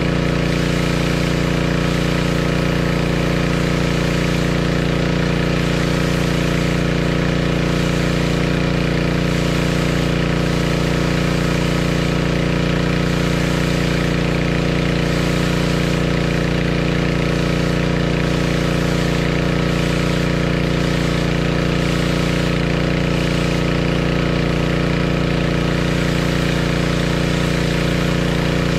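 A pressure washer's engine running steadily at constant speed, a continuous hum with a strong low drone, while water sprays from the wand onto the concrete.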